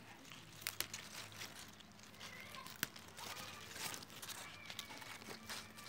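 Rustling and crinkling as lettuce leaves are picked and thin plastic cup pots are handled, with a few sharp clicks, the loudest about three seconds in.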